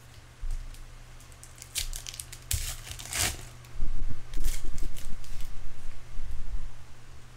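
Trading-card pack wrapper crinkling and cards being handled: a run of sharp crackles in the first half, then dull low handling knocks and rubbing in the middle, over a steady low electrical hum.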